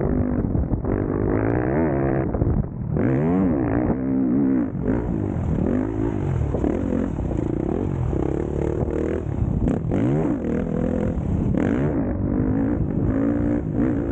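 Motocross bike engine revving hard, its pitch climbing and dropping again and again as the throttle is opened and shut and the gears change.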